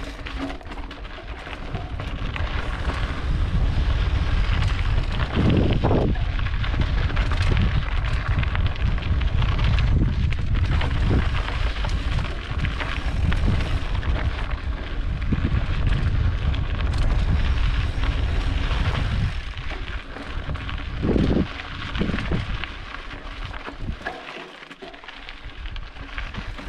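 Mountain bike riding over a rocky dirt trail: tyres crunching on gravel and rock, with knocks and rattles from the bike, under heavy wind rumble on the microphone. The noise eases off for a few seconds near the end.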